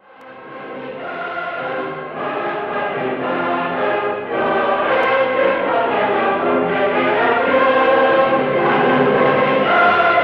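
Choral music: a choir singing long held chords that change every second or two, fading in from silence at the start and swelling louder over the first few seconds.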